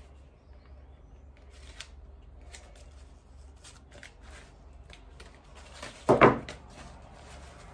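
Red-handled wire cutters snipping through the wire stem of a silk hydrangea: one sharp snip about six seconds in, after light clicks and rustling as the stem is handled.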